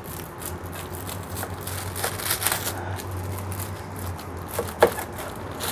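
Kitchen knife cutting down through a block of homemade tempeh in its plastic bag: irregular crackling and crinkling of the plastic and the packed soybeans under the blade, with a sharp tick near the end.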